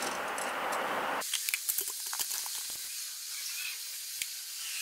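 Steady hiss whose lower part drops away about a second in, with faint light clicks of small metal parts being handled.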